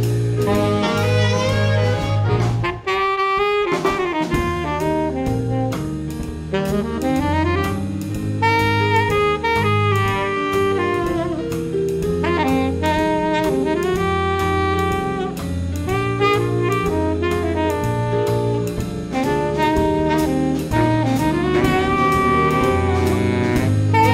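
Saxophone section playing a jazz arrangement in harmony, backed by keyboard, electric bass and drum kit keeping a steady beat on the cymbals, with a brief break about three seconds in.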